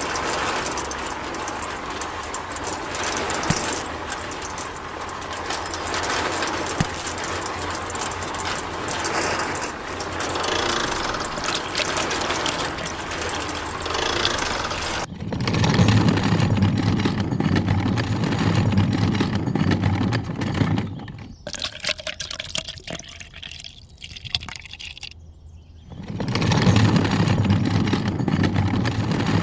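Small electric motor driving a toy-scale concrete mixer drum, with wet concrete being poured out. The low motor hum grows louder about halfway through, dips for a few seconds, then comes back.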